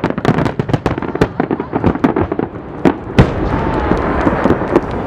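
Fireworks finale barrage: a rapid, dense run of shell bursts and crackles, ending in one loud bang about three seconds in, after which a steadier din carries on.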